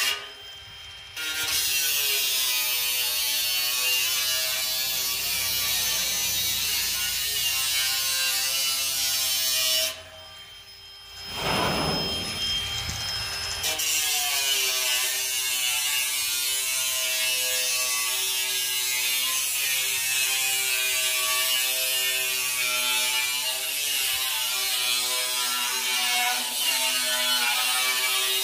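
Ryobi cordless angle grinder with a cut-off disc cutting through a steel drum: a steady whine over a loud hiss of grinding metal. It stops for about a second just after the start and again for a few seconds near the middle, spinning back up each time, which the owner puts down to nearly flat batteries.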